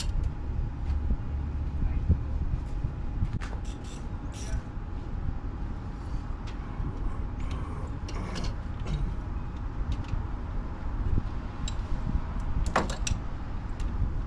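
Scattered clicks and clinks of hand tools and metal parts being handled in a car's engine bay during reassembly, over a steady low rumble, with a quick cluster of clicks near the end.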